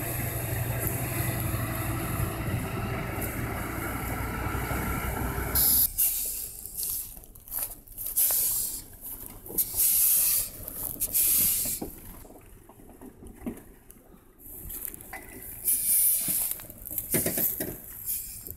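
Loaded logging truck's diesel engine running steadily under load as it climbs a dirt track, a low even hum. About six seconds in it gives way to irregular bursts of hiss with quieter gaps between.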